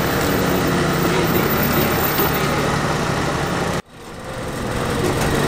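Motor vehicle engine running steadily with road noise. The sound cuts out abruptly about four seconds in and then fades back up.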